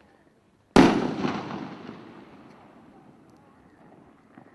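A single loud bang from the Jake's Fireworks 'NASCAR Star' consumer firework about a second in, followed by an echoing tail that fades over about two seconds. It is one shot in a series.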